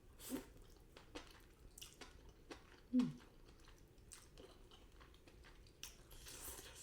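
Close-up chewing of sweet potato glass noodles, with soft wet mouth clicks. About three seconds in there is a short falling hum from the eater.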